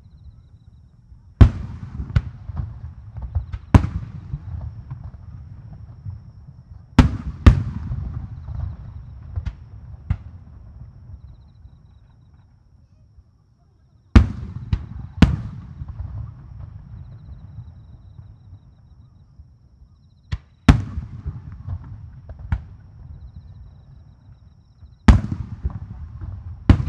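Aerial firework shells bursting with sharp booms, several coming in quick pairs. Each boom is followed by a rumbling echo that dies away over a few seconds, with a short lull about halfway through.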